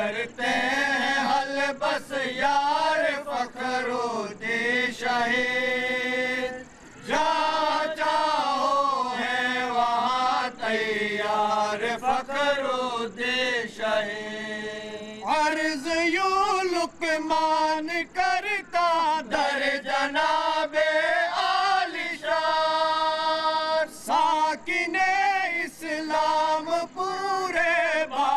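Men's voices chanting an Islamic devotional recitation in long melodic phrases with held, wavering notes, breaking off briefly about six and a half seconds in.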